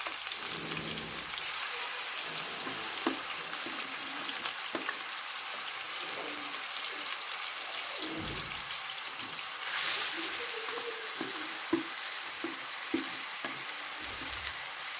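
Chopped onion, garlic and peppers sizzling in hot oil in a black frying pan as they are scraped in off a plate with a wooden spoon, with a few light clicks of spoon on plate. The sizzle grows louder about ten seconds in as more of the peppers land in the oil.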